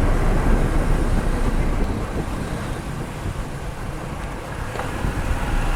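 Car's road and wheel rumble picked up by a microphone at the wheel while the brakes are applied, the noise easing as the car slows and then building again. There is no grinding or squeal: the brakes run quietly on new pads and disc.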